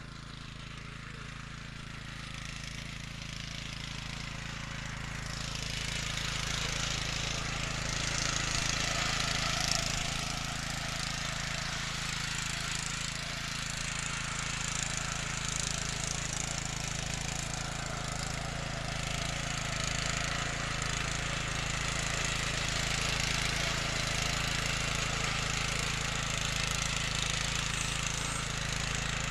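Honda FJ500 power tiller's single-cylinder four-stroke engine running steadily under load while its rotary tines churn through soil. It grows louder over the first several seconds as the tiller comes closer, and then holds.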